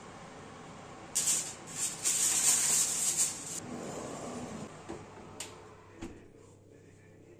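A burst of rattling, rustling noise lasting about two and a half seconds, starting about a second in, followed by a couple of light knocks.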